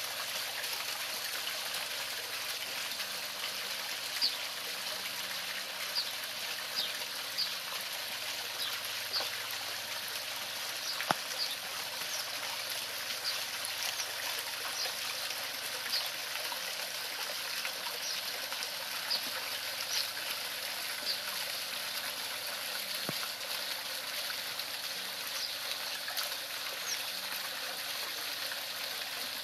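Small garden-pond waterfall splashing over stacked rocks into the pond, a steady trickling flow with brief high plinks now and then.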